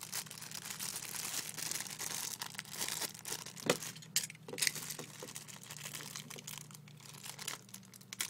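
Clear plastic packaging crinkling and rustling as it is handled, with a few sharp taps about four seconds in.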